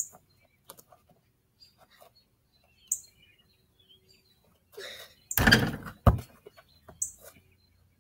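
A few brief high bird chirps, with a louder dull knocking noise in two hits a little past halfway through.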